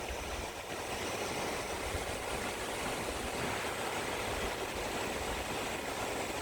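Mountain stream water rushing over rocks, a steady, even hiss of flowing water.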